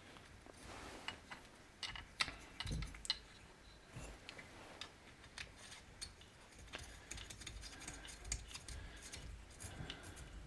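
Faint, irregular light clicks and taps of small parts being handled, as muffler studs are fitted into the chainsaw cylinder by hand.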